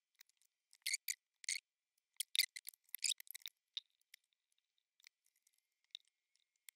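Solder flux sizzling and crackling in several short spurts as a soldering iron melts solder onto an XT60 connector's terminal, then only faint ticks.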